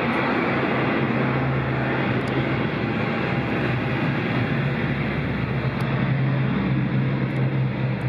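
ATR 42-300F twin turboprop on its landing roll just after touchdown, its engines and propellers making a loud, steady noise with a constant low hum that swells a little midway.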